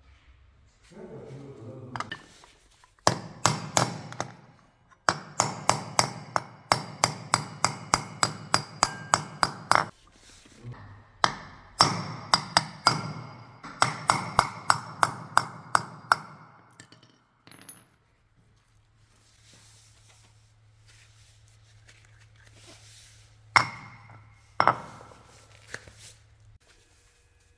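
Hammer striking metal in quick runs of about three blows a second, each blow ringing briefly, then two louder single strikes near the end: tapping a needle or radial bearing out of or into the Honda PCX125's drivetrain.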